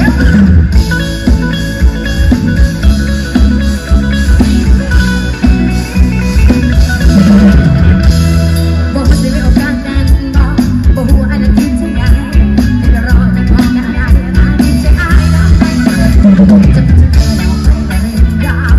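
A pop band playing live through a loud PA system: continuous amplified band music with a heavy, pulsing bass.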